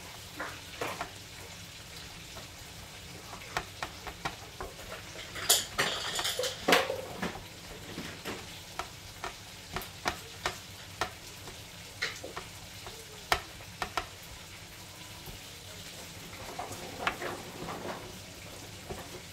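Gloved hands coating raw chicken wingettes in breading flour on a plastic plate. Scattered light taps and clicks as pieces are pressed and turned, with a louder rustle of glove and flour about six seconds in.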